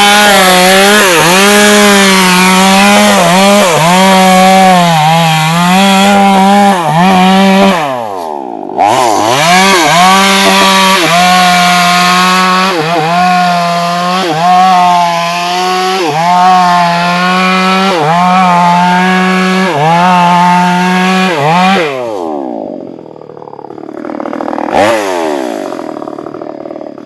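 Stihl two-stroke chainsaw at full throttle, cutting through a tree trunk, its pitch wavering as the chain bites. About a third of the way in it drops briefly to idle and revs straight back up. Near the end it is let off to idle, with one short blip of the throttle.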